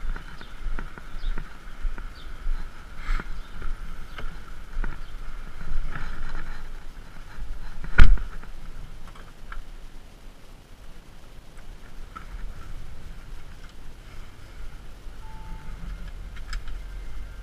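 Footsteps on paving, then an Audi SQ7 door slamming shut about eight seconds in, the loudest sound. After it comes a quieter stretch inside the cabin, with a brief electronic chime and a couple of short beeps near the end as the car's systems come on.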